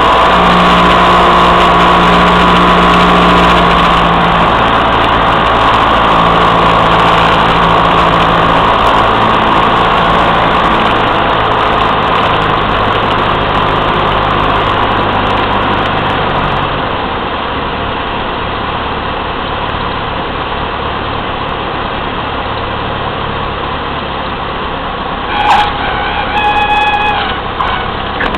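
Light single-engine airplane's piston engine and propeller heard inside the cabin on final approach, running steadily, then pulled back to idle a little over halfway through so the cabin noise drops. Near the end, in the flare, a brief steady warning tone sounds: the stall warning horn.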